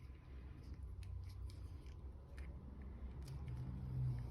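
Faint scattered clicks and light taps of a small plastic switch housing and its cap being handled and fitted back together, over a low steady hum.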